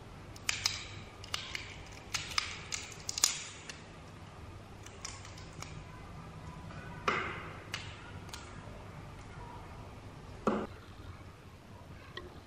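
Small metal tool ticking and scraping against the metal face of an old microphone capsule: a run of sharp clicks and scrapes over the first few seconds, a longer scrape about seven seconds in, and a duller knock about ten and a half seconds in.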